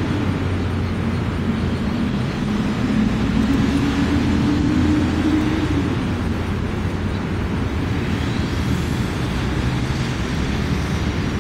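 A passing motor vehicle: a steady low rumble with an engine drone that rises slightly in pitch and fades out around the middle.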